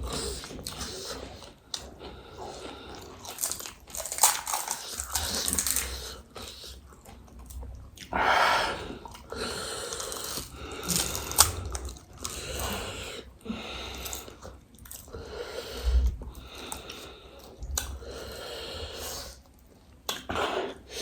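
Close-miked chewing and crunching of crisp fried snack food, pani puri shells or chatpate, in irregular bites and mouthfuls.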